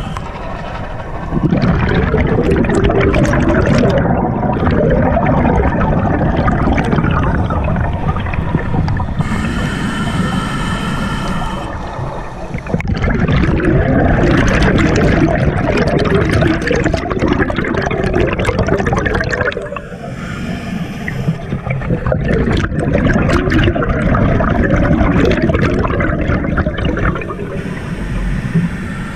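Scuba diver's regulator breathing underwater: three long rushes of exhaled bubbles, separated by short quieter pauses while the diver breathes in.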